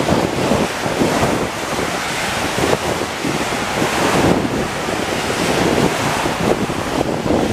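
Wind buffeting the microphone in uneven gusts over the steady hiss of heavy rain, with car tyres swishing through standing water on the road.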